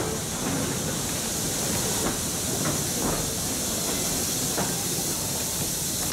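Metre-gauge steam train running, heard from a coach behind the Blanc-Misseron 020+020 Mallet locomotive: a steady hiss with irregular clicks and knocks from the wheels and coach.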